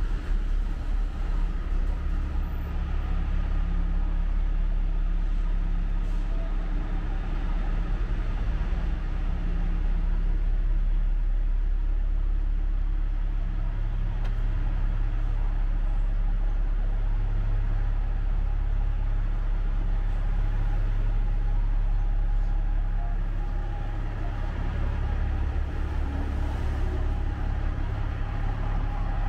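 Steady city street traffic noise, with the constant drone of a large vehicle engine running close by.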